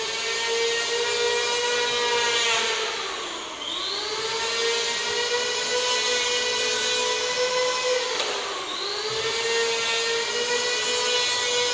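Corded electric hand planer running with a steady high whine while trimming the edge of a door; its pitch dips twice, about three and a half and eight and a half seconds in, and climbs back.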